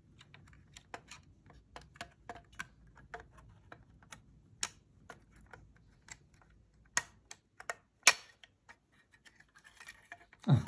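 Irregular small plastic clicks and snaps from a TP-Link AV1300 powerline adapter's snap-fit plastic case being pried apart by hand, its clips giving. A few louder snaps come in the second half.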